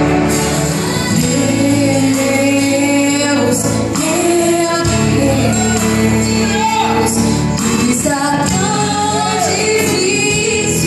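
A woman singing a Christian worship song into a handheld microphone, her amplified voice over instrumental accompaniment.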